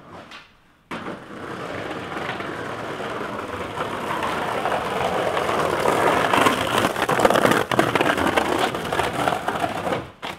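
Skateboard wheels rolling over cobblestones: a continuous rough rattle that starts abruptly about a second in, grows louder, and drops away near the end.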